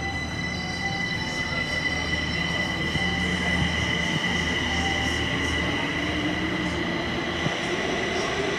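Kaohsiung MRT electric train pulling out past the platform end into the tunnel. A steady high electric whine rides over a low rumble, and a lower motor tone rises in pitch as the train gathers speed.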